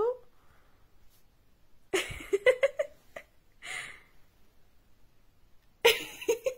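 A person laughing softly under their breath: short breathy giggles in two bouts, about two seconds in and again near the end.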